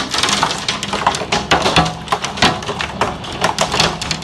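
Hailstones pelting window glass and the sill outside it: a loud, dense, fast clatter of hard hits.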